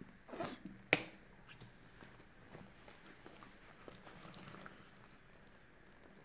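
Soapy sponges squeezed in a plastic basin by rubber-gloved hands: soft, irregular wet squishing and crackling of detergent foam. It is preceded by a brief swish and a sharp click about a second in.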